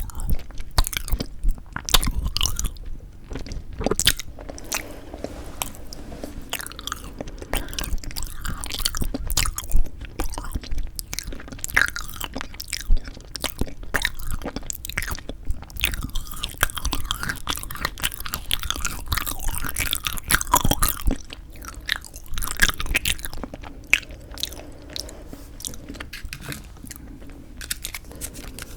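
Close-miked biting and chewing of frozen yanggaeng (sweet red bean jelly), an irregular run of crunches and sharp wet mouth clicks.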